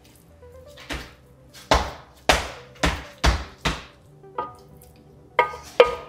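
About nine sharp knocks of a cooking utensil, irregularly spaced, each trailing off briefly, over faint background music.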